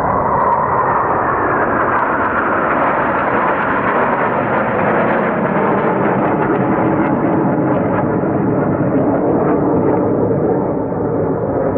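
Military jets flying an air show display, their engines making a loud continuous rush whose pitch falls over the first few seconds as they pass, then holds steady.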